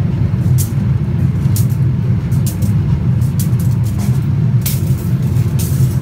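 A steady low machine rumble runs throughout. Over it come short scraping swishes, half a dozen or so, as metal rods are set into the moulding sand.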